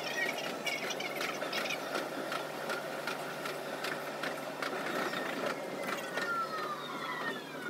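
Running sound of a 373 series electric train, sped up: a steady rumble with quick, regular wheel clicks over rail joints. Near the end a whine falls in pitch as the train slows into a station.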